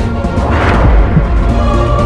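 Dramatic end-credits soundtrack music with sustained tones over a heavy low end, and a swelling whoosh that peaks about a second in.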